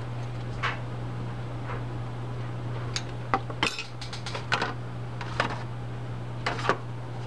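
Small metal reel parts clinking against each other and the plastic as a hand rummages through a plastic parts tub: a scattered run of light clinks, thickest in the middle, over a steady low hum.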